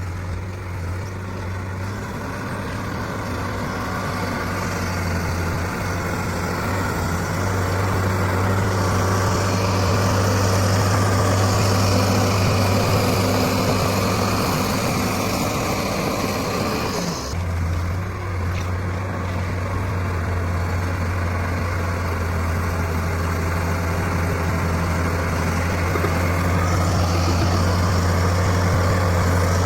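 Heavy diesel engine of construction machinery running steadily with a deep hum, with a brief dip and change in the engine note partway through.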